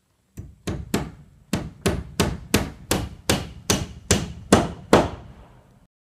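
Hand hammer driving nails into wooden barn boards: about thirteen sharp blows, roughly three a second with a short pause after the third, the later blows louder.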